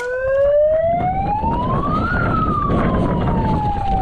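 A siren wailing once: it starts suddenly, rises in pitch for about two seconds, then winds slowly back down, over a rumble of wind and movement noise.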